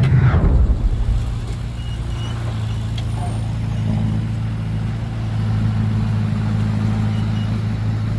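Diesel engine of heavy earthmoving machinery running with a steady low hum. At the very start there is a loud burst whose pitch falls over about a second.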